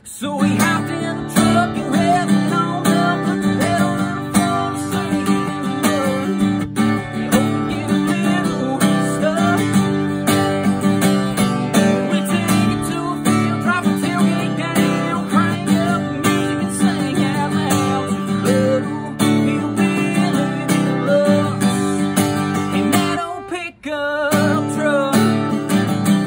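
Acoustic guitar strummed and picked in a steady rhythm, with a man's voice singing along in places. The playing breaks off briefly near the end, then starts again.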